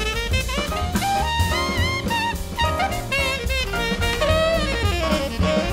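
Jazz background music: a wavering saxophone melody over a drum kit with a steady beat.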